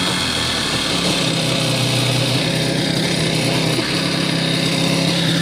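Kawasaki X-2 jet ski's two-stroke twin engine running steadily.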